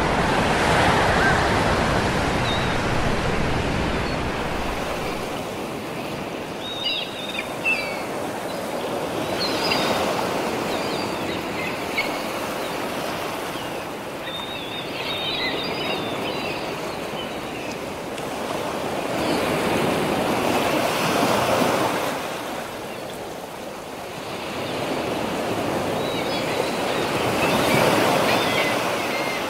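Sea waves breaking and washing on a beach, swelling and fading in slow surges several seconds apart, with faint short high calls now and then.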